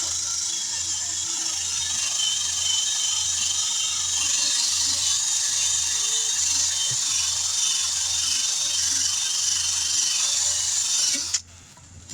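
Handheld power tool running steadily against the tire rubber, preparing the inside of a punctured tire for a patch, with a hissy, grinding sound. It cuts off sharply about eleven seconds in.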